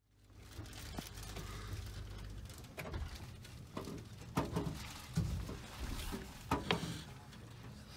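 Steady low rumble of a Thalys high-speed train carriage, with a string of sharp clicks and knocks from a hand handling the plastic shell of a seat back. The knocks are loudest about halfway through.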